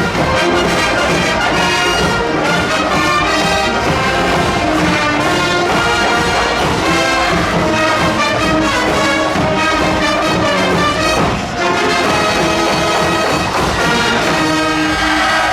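A large high school brass band playing loudly in an indoor arena: massed trumpets, trombones and other brass with percussion, the sound dipping briefly about 11.5 seconds in before the full band comes back in.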